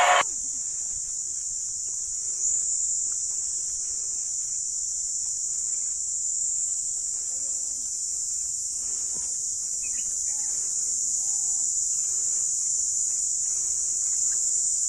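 Chorus of insects, a steady high-pitched drone without a break, with faint voices under it in the middle.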